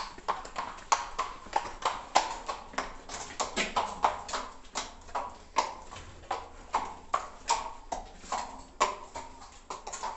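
A horse walking, its hooves clip-clopping on the hard floor of a stone-vaulted underpass in an uneven run of sharp strikes, about three a second.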